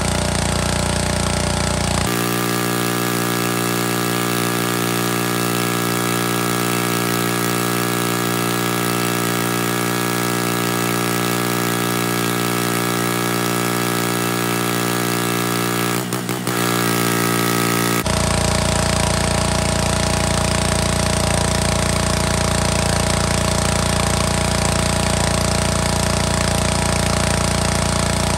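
Pressure washer running steadily while spraying water onto a rusty motorcycle gas tank. Its tone shifts abruptly a few times, about two, sixteen and eighteen seconds in.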